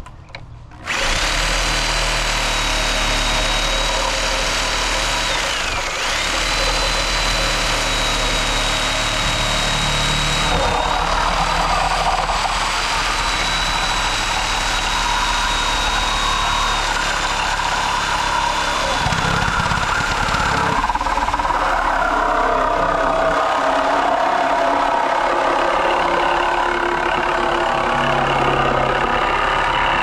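Porter-Cable Tiger Saw reciprocating saw with a Diablo automobile-dismantling blade cutting through the steel shell of a water heater tank. It starts about a second in and runs steadily, with a high whine that drops briefly once about six seconds in.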